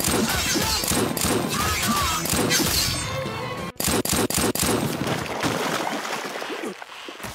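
Anime sound effects for a revolver fight: a dense flurry of sharp hits and impacts, then a quick burst of about four gunshots about four seconds in after a brief cut-out, trailing off toward the end.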